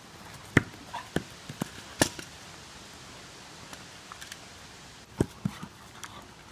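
A dog bumping and pushing a big plastic ball, giving about half a dozen sharp knocks and thumps, most in the first two seconds and two more about five seconds in.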